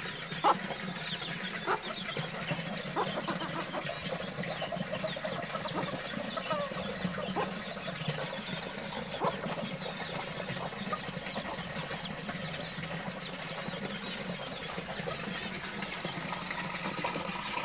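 Backyard chickens giving occasional short clucks, over frequent quick high chirps from small birds and a steady low hum.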